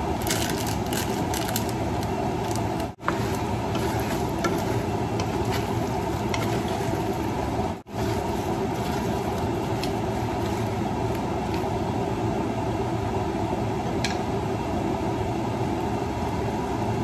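Steady rushing kitchen noise as crawfish cook in a steaming pot on the stove, with scattered light clicks from a wooden spoon stirring them. The sound cuts out for an instant twice.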